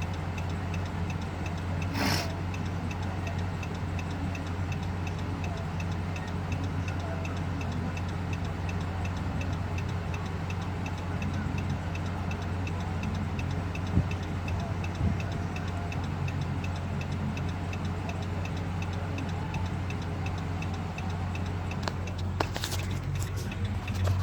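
A car's flasher relay ticking evenly, over the steady low hum of the idling engine. There is a brief rush of noise about two seconds in and a few sharper sounds near the end.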